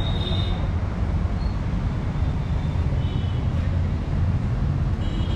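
Steady rumble of vehicle traffic, with a couple of faint short high tones around halfway through.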